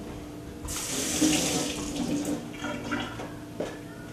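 Kitchen faucet running for about a second and a half as a small test vial is rinsed under it, followed by a few light knocks.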